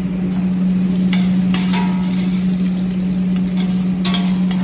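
Soya pieces frying in oil in a stainless-steel pot, stirred with a metal spoon that scrapes and clinks against the pot a few times. A steady low hum runs underneath.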